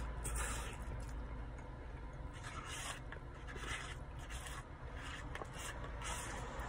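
A series of short scraping or rustling noises, each lasting a fraction of a second, over a steady low hum.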